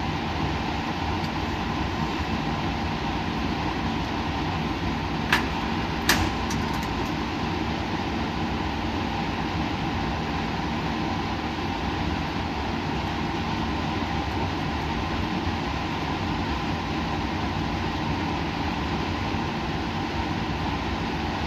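Steady hum and hiss of running laboratory equipment, with two short sharp clicks about five and six seconds in.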